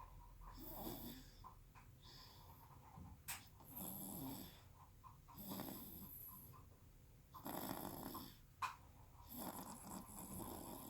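Six-month-old baby snoring in its sleep: a rough snore on each breath, about six in all, every second and a half to two seconds. A short sharp click about three seconds in and a louder one about eight and a half seconds in.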